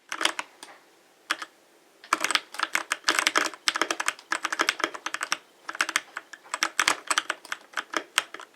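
Typing on a mechanical keyboard: a few keystrokes, a short pause, then fast continuous typing from about two seconds in.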